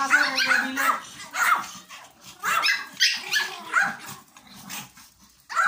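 Pomeranians yapping in quick clusters of short, high barks, with a lull of about a second near the end.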